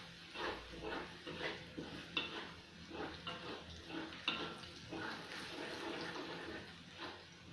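Metal spatula scraping and stirring in a stainless steel wok, about three strokes a second, over the sizzle of aromatics frying in a little oil.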